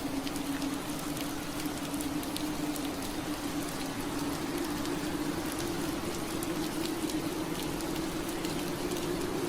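Steady rain pattering on window glass, with many fine drop ticks over an even hiss. Under it runs a low steady hum that rises slightly in pitch.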